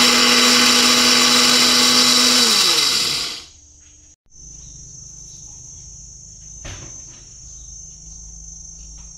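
Small electric dry grinder motor running at full speed, grinding dry grains to powder, then switched off and spinning down with a falling pitch about two and a half seconds in. Afterwards only a faint steady high whine with one light knock.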